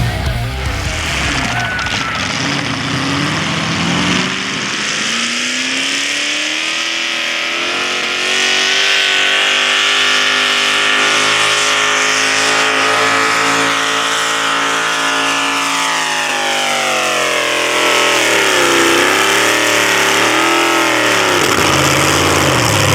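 Ford Escort panel van's V8 engine at full throttle hauling a tractor-pull sled. The revs climb over the first few seconds and hold high and steady, then fall away about two-thirds through, waver up and down, and drop back near the end.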